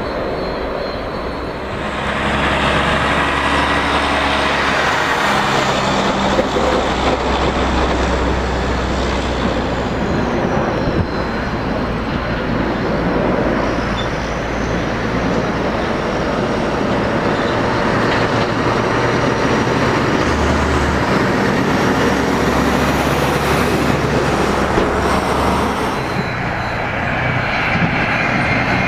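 Jet airliner engines, loud and continuous, with a steady low hum and a high whine that falls in pitch about ten seconds in.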